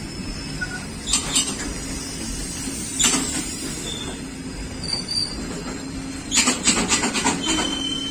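Loaded open freight wagons rolling past at a steady speed: a continuous low rumble broken by sharp knocks and rattles from the wheels, with a quick run of them about six and a half seconds in.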